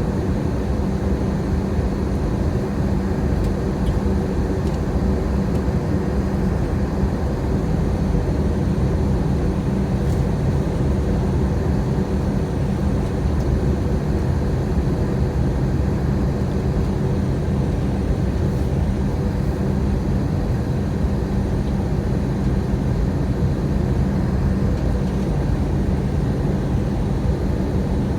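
Steady aircraft noise in flight: a constant rushing drone with a low, unchanging hum.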